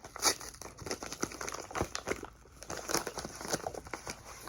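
Packaging being handled and crinkling, a run of irregular small crackles and clicks.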